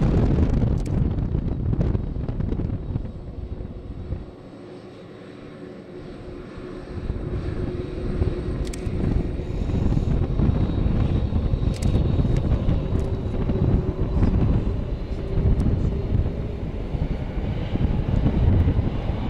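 Boeing 767-300 jet engines at takeoff thrust as the airliner starts its takeoff roll and rolls past close by: a deep rumble with a steady whine. The rumble drops for a few seconds about four seconds in, then builds back up and stays loud.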